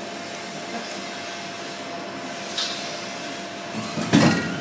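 Injection moulding machine running with a steady hum and hiss while the mould is clamped shut. About four seconds in comes a loud, sudden mechanical noise as the machine starts to open the mould at the end of the cycle.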